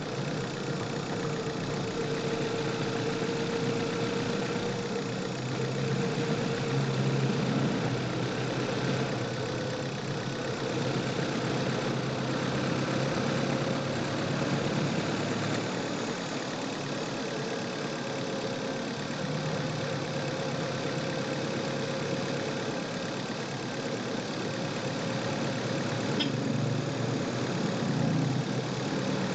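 Chevrolet car engine running steadily at low, even revs, heard close up from inside the engine bay, with one brief click near the end.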